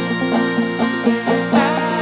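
Old-time string-band music: clawhammer banjo played with a fiddle, the fiddle sliding into a note about one and a half seconds in.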